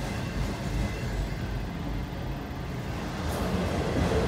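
Freight train of autorack cars rolling past, a steady low rumble of wheels on rail that gets louder near the end.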